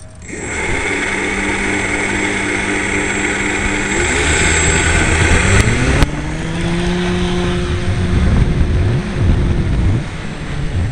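GWS Slowstick floatplane's electric motor and propeller starting up and running at take-off power, heard close up from the on-board camera. The motor's tone rises about four to six seconds in as it picks up speed, and the sound wavers and drops a little near the end as the model climbs away.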